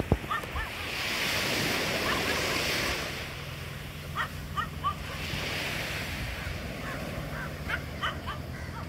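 Ocean surf washing up a beach, the hiss of the surf swelling twice, about a second in and again about halfway through.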